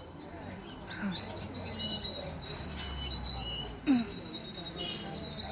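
Rapid, high-pitched chirping and twittering from small animals, thickening about a second in and running on as a dense chatter of little squeaks.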